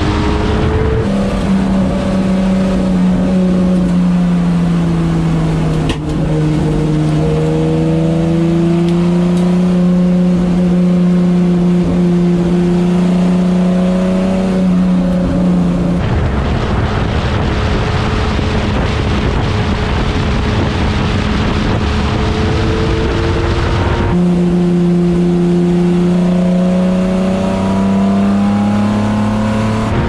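Onboard sound of a Huffaker Genie Mk13 sports racing car's engine at racing speed, its pitch climbing and dropping back with throttle and gear changes, with a brief break about six seconds in. For several seconds in the middle the engine note fades under wind and road noise in the open cockpit, then returns and climbs again near the end.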